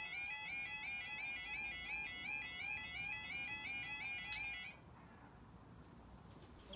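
Level crossing Yodalarms sounding together with the flashing wigwags: a fast, repeating electronic warbling yodel tone. A brief click comes just before the alarms cut off abruptly about four and a half seconds in.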